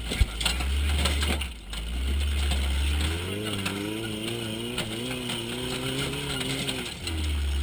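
Off-road race truck driving a dirt road, heard from inside the cab: a heavy low engine and drivetrain rumble, with a sharp knock just after the start. Through the middle the engine note rises and falls with the throttle.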